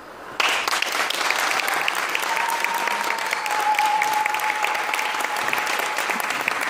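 Theatre audience applauding, starting all at once and holding steady. A single steady high tone sounds over the clapping from about two seconds in.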